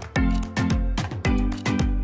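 Background music without vocals: a steady beat with drum hits and deep bass notes that slide down in pitch.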